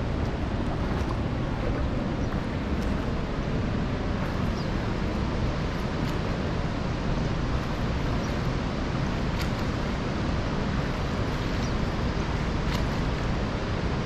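Steady rushing roar of a waterfall's falling water.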